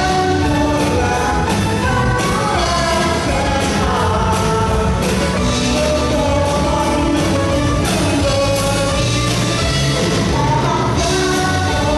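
A band playing a song, a singer carrying the melody over drums and bass.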